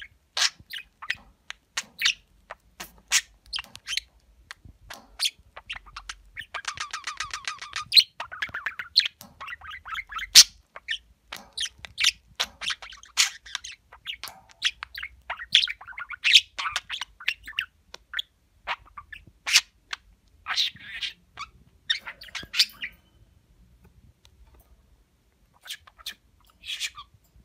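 Male budgerigar warbling and chattering: a run of short chirps and clicks, with a buzzy stretch about six to eight seconds in and a brief lull near the end.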